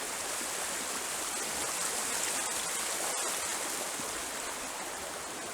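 Steady rush of a small river running through a snowy hollow.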